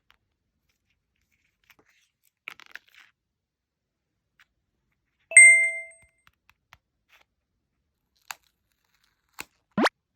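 Light paper-handling ticks and rustles with silence between them. About halfway through there is a single bright ding that fades over half a second, and near the end a couple of clicks and a short rising chirp.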